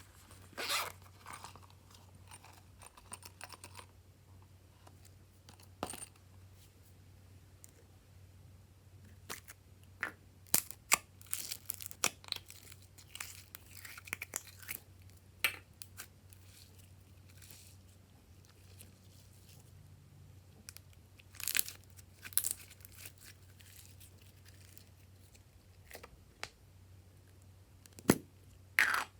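Sticky slime being stretched, squeezed and pulled apart by hand, giving short clusters of crackling and popping separated by quiet stretches.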